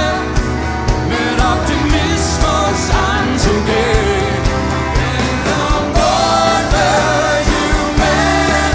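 Live band performance: a male voice sings lead over acoustic guitar and a full band, with other singers joining in, over a steady kick-drum beat.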